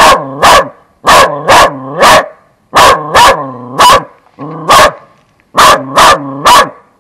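Young Australian Shepherd barking loudly and repeatedly, about a dozen barks in quick bursts of two or three roughly a second apart: reactive barking from a dog that goes off at other dogs.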